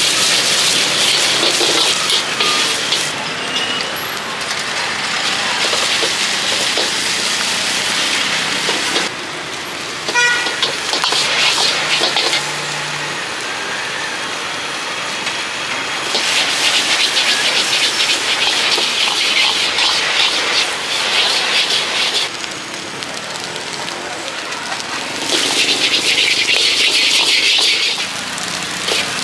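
Stir-frying in a wok over a high gas flame: sizzling that swells several times and falls back between surges, over busy street noise.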